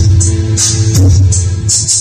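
Recorded music played loud through a PA of Kevler KR310 and Crown BF105 speakers on a single Kevler GX5 amplifier, with no subwoofers. It has a heavy, pulsing bass line and regular crisp high percussion hits.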